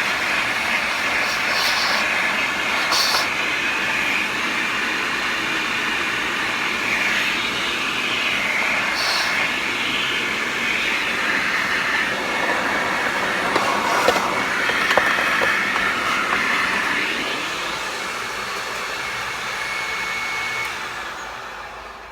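Vacuum cleaner motor running with a steady whoosh, then winding down and stopping near the end.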